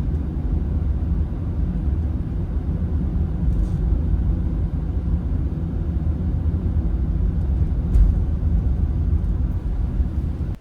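A steady low rumble that cuts off suddenly at the end.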